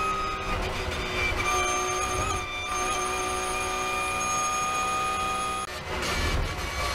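Porsche 911 GT3 R's flat-six racing engine at high revs, heard from inside the cockpit, holding a steady note at flat-out speed with a short break about a second in. About a second before the end the steady note cuts off and gives way to a rougher, noisier sound.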